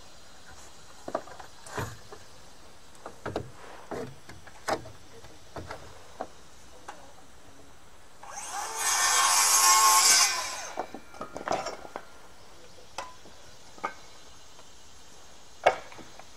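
Circular saw spinning up and cutting into a wooden framing board for about two seconds, then winding down: a shallow 1.5-inch-deep kerf, the first of several passes to notch a recess for a 2x4. Scattered clicks and knocks come before and after the cut as the saw is handled and its depth is set.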